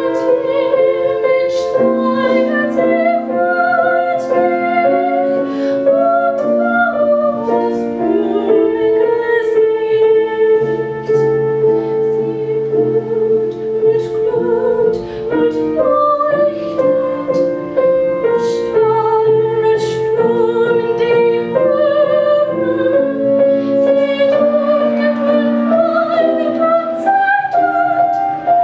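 A woman singing a classical song in trained operatic style, accompanied by grand piano, with long held notes and vibrato.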